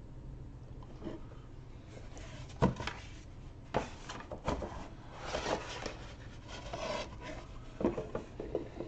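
Stiff cardstock map sheets and a cardboard game box being handled: sliding and rubbing, with a few sharp knocks as the sheets and box are moved.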